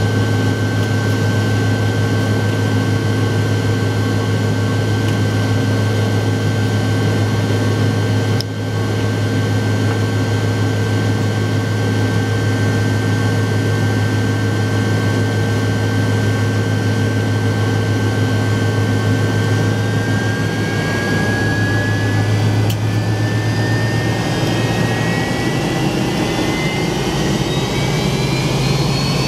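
Inside the cabin of a McDonnell Douglas MD-88, next to its rear-mounted Pratt & Whitney JT8D turbofan: a steady engine hum and whine at idle. About two-thirds of the way through, the whine starts rising in pitch as the engine spools up.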